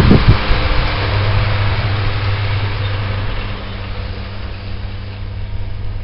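Snow plow dump truck's engine running as it drives past, a steady low hum under a dense hiss, growing fainter as the truck moves off. A few sharp knocks right at the start.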